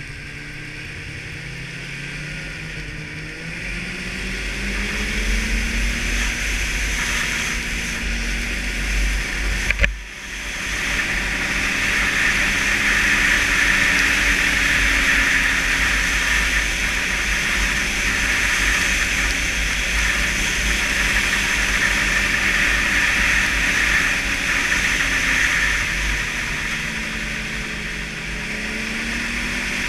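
Snowmobile engine running under way, its pitch rising as it speeds up over the first few seconds, then holding steady under a loud, even rushing hiss. A single sharp knock about ten seconds in.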